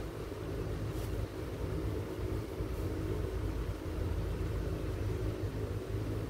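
Steady low rumble and hum of a kitchen, with mushrooms and diced vegetables being stir-fried in a steel wok with a wooden spatula.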